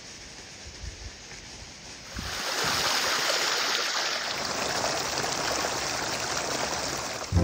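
Small mountain brook pouring and splashing over rock close to the microphone, starting about two seconds in, with a soft water bottle held in the flow to fill.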